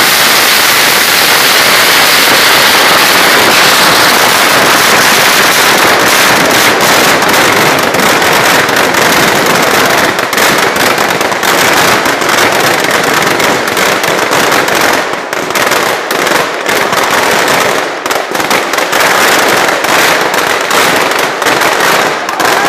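Firecrackers packed inside a burning Dussehra Ravana effigy going off in a dense, continuous crackling barrage. After about ten seconds it breaks into many separate sharp bangs.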